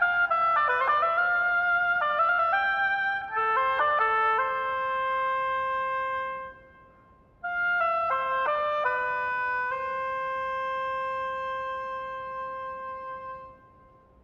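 Solo oboe playing a quick run of notes that settles into longer held notes. It breaks off for about a second, resumes with a few quick notes, and closes the phrase on a long held note that fades away near the end.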